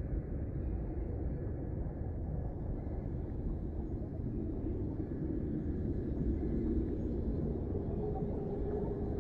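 A steady low rumble with no distinct events and a faint steady tone near the end.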